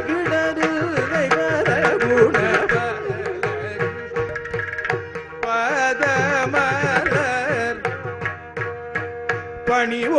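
Carnatic vocal music in raga Dhanyasi: a male voice singing with gliding ornamented phrases, accompanied by ghatam (clay pot) strokes over a steady drone.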